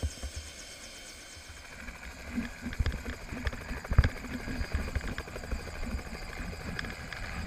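Bell 206 JetRanger helicopter's two-bladed rotor running with a quick, even thumping as it lifts off, growing louder about two seconds in. Two loud thumps come near the middle.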